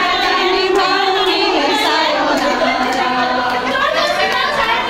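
A group of women singing together, several voices at once, with some clapping along.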